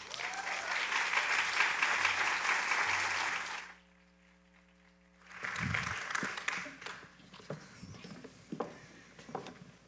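Audience applauding for about three and a half seconds, then stopping. A shorter burst of noise follows a couple of seconds later, then a few scattered light knocks.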